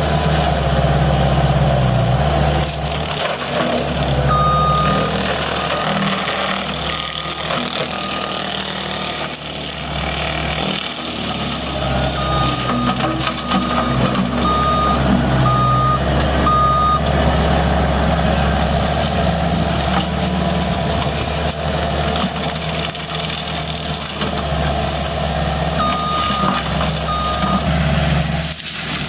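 A heavy machine's engine running steadily, with a reversing alarm sounding in several short runs of high single-pitch beeps, roughly one a second or a little faster.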